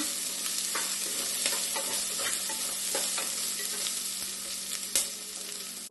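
Chopped onion frying in hot oil in a pot, sizzling steadily. Scattered clicks and scrapes of a spoon stirring it against the pot, with one louder knock about five seconds in. The onion is being cooked down to golden brown.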